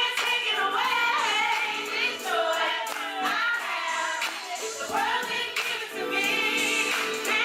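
Live gospel singing: a voice sweeping up and down in ornamented runs over steady held notes of the accompaniment.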